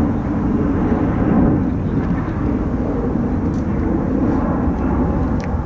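A steady low roar with a few faint clicks.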